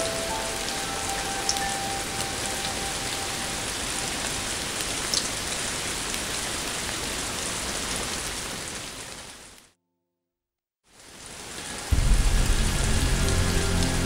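Heavy rain falling steadily, with a few faint drips. It fades out to silence briefly about ten seconds in, then returns. About twelve seconds in, a loud, low music score comes in over the rain.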